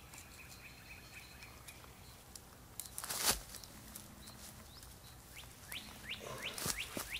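Wild birds chirping: a faint run of short calls at first, then, from about five seconds in, a series of quick downward-sliding chirps. About three seconds in comes a brief scuffing rustle, the loudest sound.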